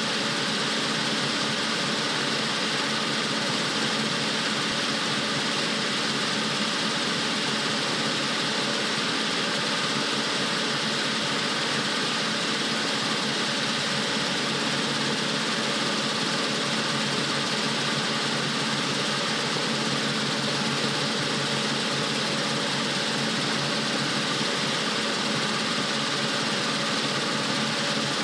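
Rotorway 162F helicopter in steady cruise flight: its flat-four piston engine and rotor running at a constant note, with a rush of air over the outside of the cabin. Nothing changes in pitch or loudness.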